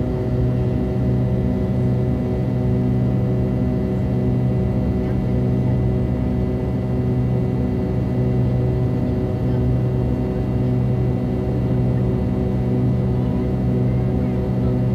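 Jet airliner engine heard from a cabin window beside its nacelle: a steady droning hum of several low tones, the lowest strongest, under a rumble, with the engines at climb power.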